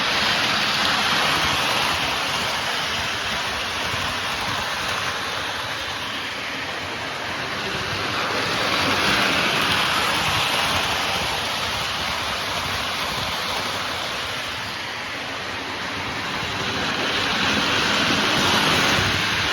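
Lionel 239 die-cast toy steam locomotive running around a model railroad loop: a steady rushing rumble of motor and wheels on the track, swelling louder about every nine seconds as it passes close.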